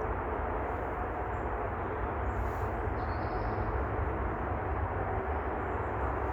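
Steady low rumble and hiss of outdoor background noise, with no distinct strokes or clicks.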